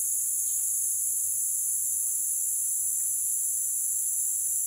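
Dense chorus of rainforest insects shrilling steadily at a high pitch, without a break.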